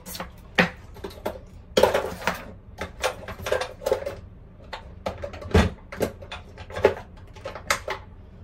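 Small hard objects being handled and set down, clicking and clattering irregularly, with a few sharper knocks among them.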